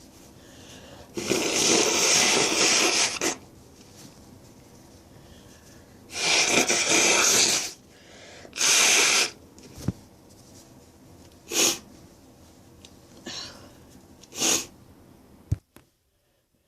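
A woman's sneezing fit with drawn-out build-ups. Three long, noisy bursts come in the first half, then three short, sharp sneezes.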